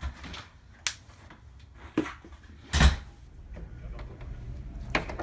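Doors being opened and shut: a handful of sharp knocks and thumps, the loudest and deepest about three seconds in.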